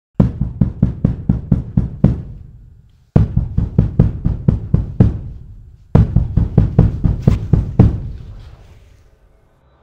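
Loud, rapid knocking in three bursts of about eight blows each, roughly four a second, each burst dying away in an echo over about a second.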